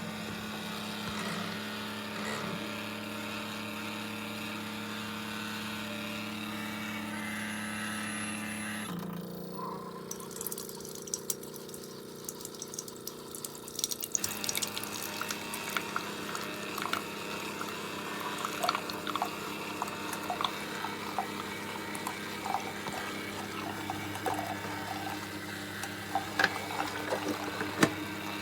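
Keurig K-Compact coffee maker brewing: its pump hums steadily as hot water is pushed through the pod and coffee streams into the cup. About nine seconds in the hum shifts, and from about fourteen seconds on, crackling and spitting sounds join it.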